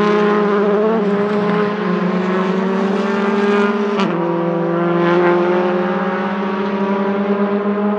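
Honda Civic Type-R WTCC TC1 race car's 1.6-litre turbocharged four-cylinder engine running at high revs, its note climbing slowly as the car accelerates. About halfway through the note breaks off sharply, drops, and climbs again.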